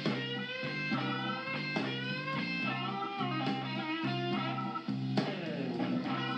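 Background music led by a guitar, with sliding, bending notes over a steady low bass line.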